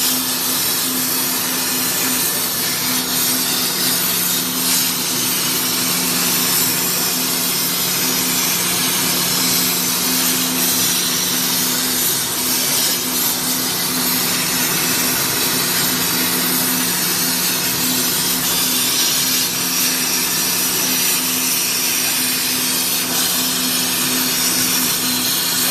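CNC plasma cutting machine's torch cutting metal: a loud, steady hiss with a constant low hum beneath it.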